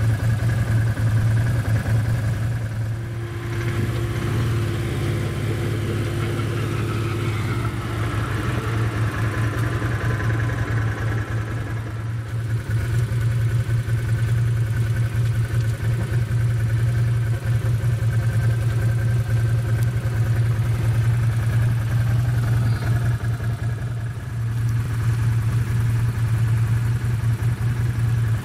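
Side-by-side off-road vehicle's engine running steadily while driving on a trail, the level easing off briefly twice.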